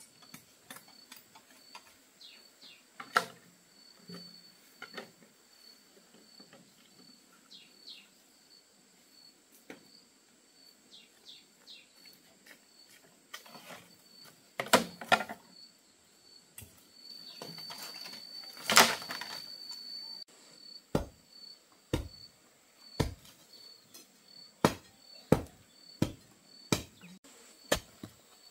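An insect chirping steadily in fast pulses, with scattered clicks and knocks over it. In the last third, regular knocks come about once a second.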